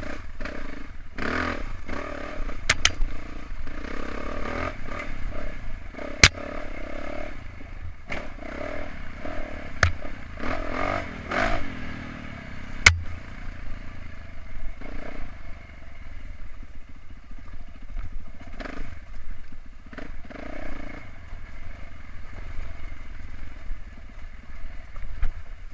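450cc four-stroke dirt bike engine, heard from the rider's helmet camera, revving up and down as the bike picks its way over a steep rocky trail. Sharp knocks and clatter come from the bike hitting rocks, three of them standing out loud and sudden.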